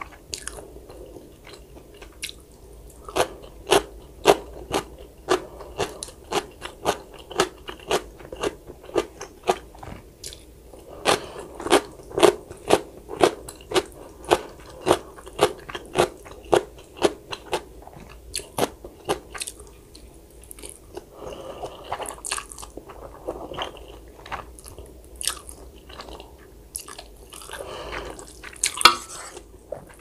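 Close-miked eating sounds: a person chewing crunchy food, with crisp crunches in a steady rhythm of about two to three a second. In the last third the crunches thin out into softer, wetter chewing.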